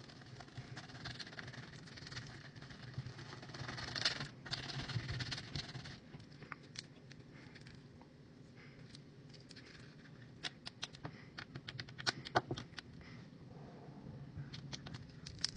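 Hands squishing and working a large mass of slime: a run of wet squelching, then many sharp little clicks and pops, thickest in a burst past the middle.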